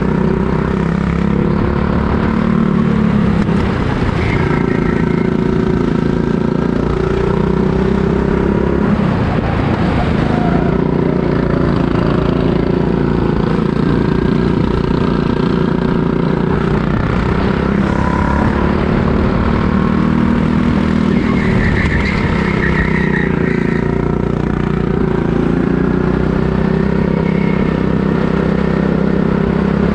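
Go-kart engine running hard through a lap, its revs repeatedly climbing and dropping back as the kart accelerates out of corners and lifts for the next.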